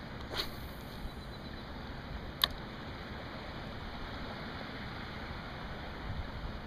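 Steady wash of lapping water and light wind around a kayak on calm water, with a brief rush of noise about half a second in and one sharp click about two and a half seconds in.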